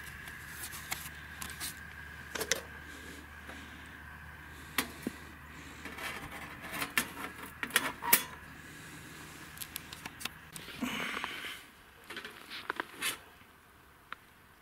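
Wooden tongs clicking and knocking against a stainless-steel Skotti grill and pizza stone as pizza slices are handled: a run of sharp taps and clatters, loudest in the middle, over a steady low hum that stops about eleven seconds in.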